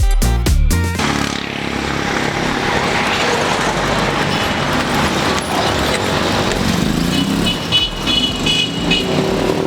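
Road traffic: a steady mix of vehicle engines and tyre noise, taking over as background dance music cuts off about a second in.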